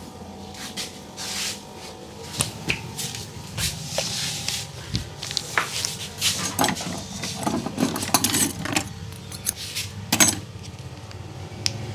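Barber's hands slapping, tapping and rubbing on a customer's head during a head massage: irregular sharp slaps and clicks with rustling, coming faster in the second half, over a steady low street hum.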